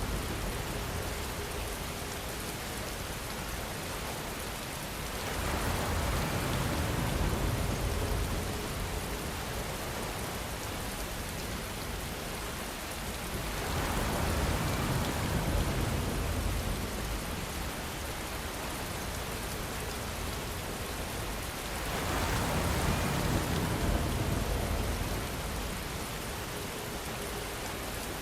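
Steady rainfall, a dense even hiss of drops on a surface, swelling louder three times at regular intervals of about eight seconds.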